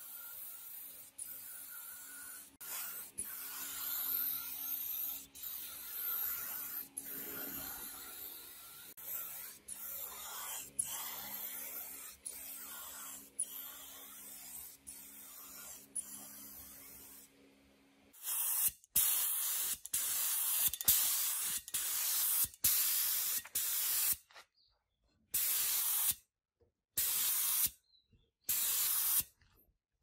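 Compressed-air paint spray gun hissing as paint is sprayed. In the second half the spray comes in loud bursts that start and stop sharply, with short silences between trigger pulls. A faint low hum runs under the first half.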